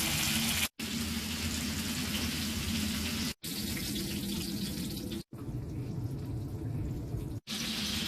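Steady hissing kitchen noise, like food frying or a tap running, in four short clips cut together with brief silent breaks between them.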